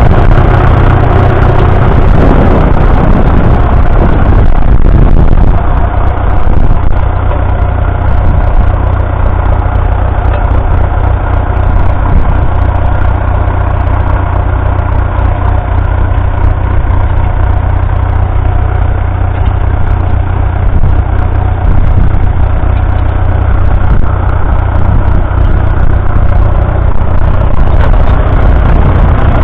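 1963 Fordson Super Major's 3.6-litre four-cylinder diesel engine running steadily. About six seconds in the sound eases off slightly and turns duller.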